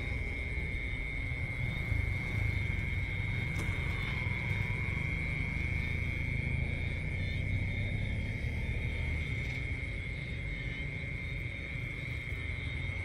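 Steady high-pitched drone of night insects calling without a break, over a continuous low rumble.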